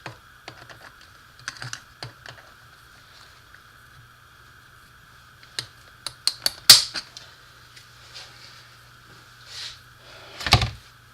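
Light metallic clicks and taps of snap ring pliers and a steel snap ring being worked down onto a bearing on a transfer case output shaft. There is a quick run of sharp clicks about two-thirds of the way through and a heavier knock near the end.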